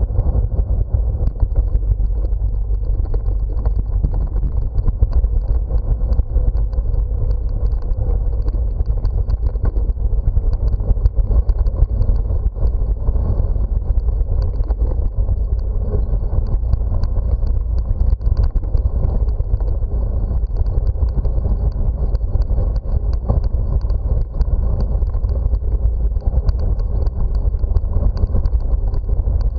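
Steady low rumble of riding a bicycle: wind buffeting the microphone together with the tyres rolling over paving and brick pavers.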